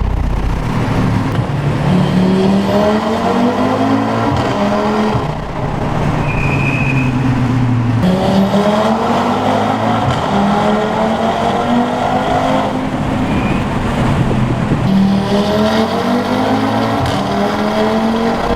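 Audi RS3's turbocharged 2.5-litre five-cylinder engine through an Armytrix valved exhaust, accelerating hard with the pitch climbing through the gears; the pitch drops back at each shift and the engine pulls up again, in about three runs.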